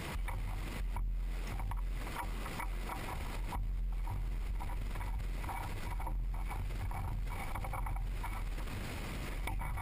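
Irregular small metallic clicks and knocks of steel parts being handled and seated as a radial tool attachment is fitted onto a mini-lathe's cross-slide mount, over a steady low hum.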